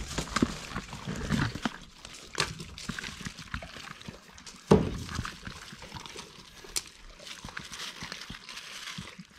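Dogs chewing and crunching raw chicken heads: irregular wet crunches and clicks, with one sharper, louder crack about five seconds in.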